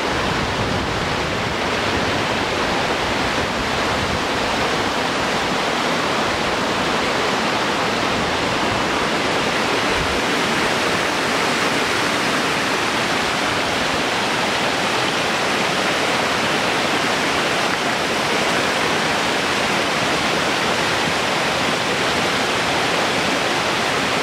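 Creek water rushing and splashing over rocks in small cascades: a steady, even rush.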